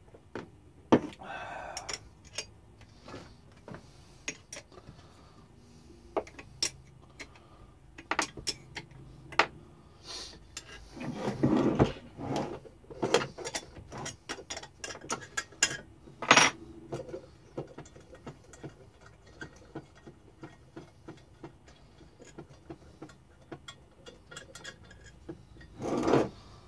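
Scattered clinks, clicks and knocks of hand tools and the sewage pump's housing being handled and worked on a workbench, with heavier clunks about eleven seconds in and again near the end.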